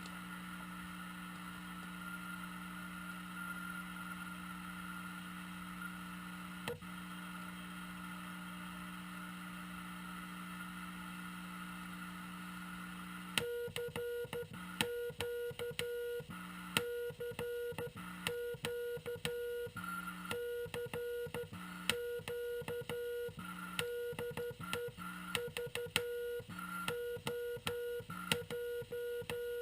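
Frog Sound QRP CW transceiver on 40 metres giving steady receiver hiss and hum, with a single click about seven seconds in. About halfway through, a Morse code tone starts keying on and off in short and long elements, with a sharp click at each key-down and key-up.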